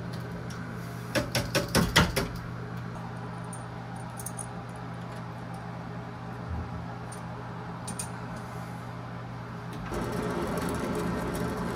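A quick run of sharp clicks and clinks about a second in, over a steady low hum. Near the end a torch flame starts up and hisses steadily as it heats the copper line at the valve.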